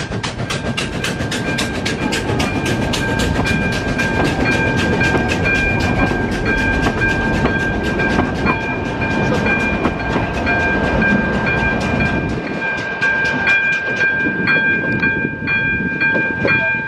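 Narrow-gauge passenger train hauled by a U 37.0 steam locomotive rolling slowly past, with a fast, even clicking of about three clicks a second throughout. A steady high ringing tone comes in about three seconds in, and the low rumble fades about twelve seconds in as the train draws away.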